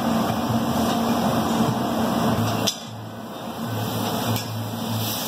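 Steady fan-like hum and noise of a commercial grill kitchen. The level drops suddenly about halfway through and stays lower.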